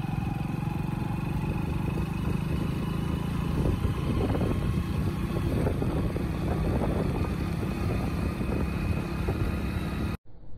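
Motorcycle engine running steadily at cruising speed, with wind and road noise, heard from the rider's seat. It cuts off suddenly near the end.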